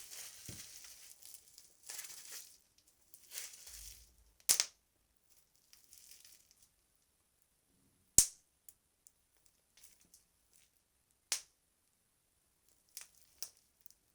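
Bubble wrap squeezed by hand as foley for the crackle of fire: soft plastic crinkling at first, then single bubbles popping sharply at irregular intervals, a few seconds apart, with a couple of quick pops close together near the end.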